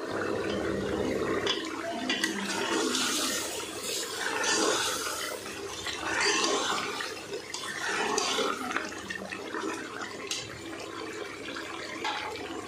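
Bitter gourd and meat curry sizzling in a pot as a metal spatula stirs through it: a hiss that swells and eases unevenly, with an occasional light scrape.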